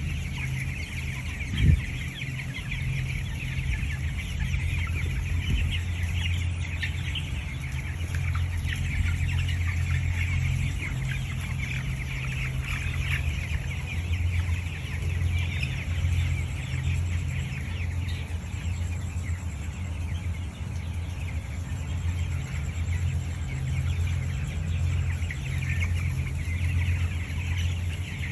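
A large flock of broiler chickens clucking and chirping continuously, over a steady low hum. A single sharp knock comes a little under two seconds in.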